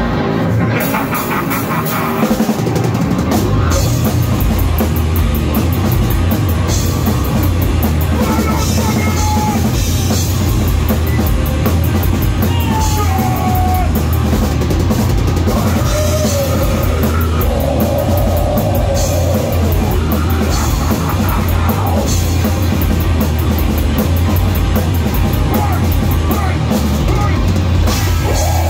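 Nu-metal band playing live, loud: down-tuned, distorted seven-string guitars and bass over a pounding drum kit, picked up by a phone's microphone.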